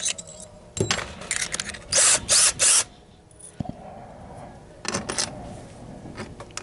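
Drill-driver with a Torx bit driving steel screws into the vacuum's housing in short bursts: one about a second in, three in quick succession around the middle, and another near the end, with light handling clicks between them.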